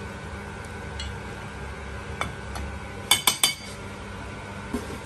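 Metal ladle clinking against a large iron wok while stirring pork ribs blanching in water: a few light taps, then three or four quick clinks about three seconds in.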